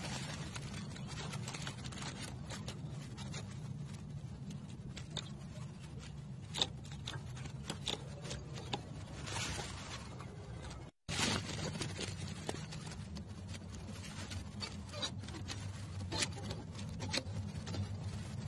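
Zucchini leaves and stems rustling and scraping as a hand pushes through them, with scattered small clicks, over a low steady hum. The sound drops out for an instant about eleven seconds in.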